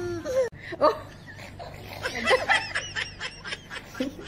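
A baby's long crying wail ends about half a second in. From about two seconds in, a baby giggles in a run of quick, high-pitched bursts.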